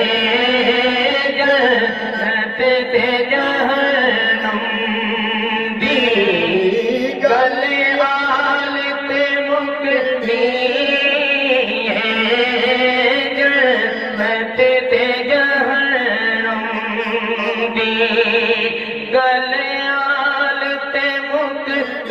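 A man sings a Punjabi devotional kalaam through a microphone and PA, drawing out long ornamented notes. About six seconds in, his voice swoops down in pitch and climbs back up.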